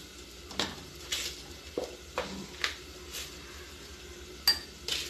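A spoon scooping granulated sugar out of a plastic tub into a glass, heard as a string of short scrapes and light clinks about every half second to a second.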